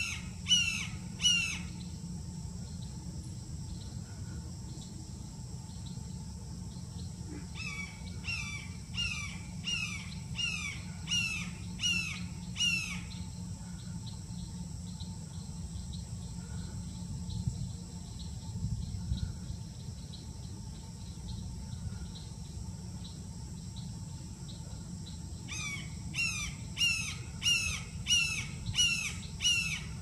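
Red-shouldered hawk calling in repeated, down-slurred screams, about two a second, in three bouts of several seconds each. A steady low hum runs underneath.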